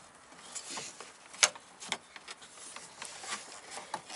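Hands handling the plastic fuel-line connectors as they are pushed onto the fuel filter of a VW Mk4 GTI, making a few sharp clicks and light knocks, the loudest about a second and a half in.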